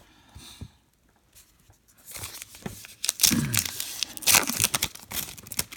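Trading card pack wrapper being torn open and crinkled: a quiet start, then from about two seconds in a dense run of crackling rips and rustles.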